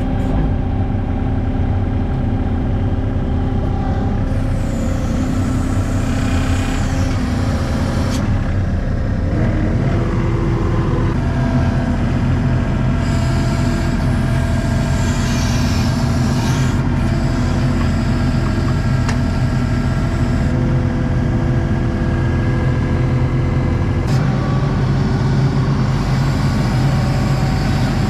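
ASV RT-40 compact track loader's diesel engine running steadily under load as the machine travels, heard from inside the open cab, with a higher whine that rises and falls twice, about 5 and 15 seconds in.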